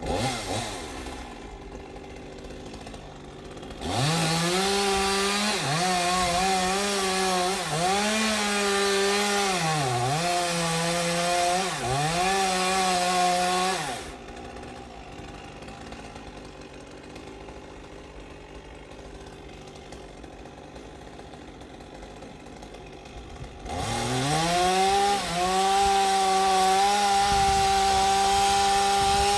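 Two-stroke chainsaw idling, then revved to full throttle for about ten seconds with its pitch dipping several times, falling back to idle, and revved up again near the end.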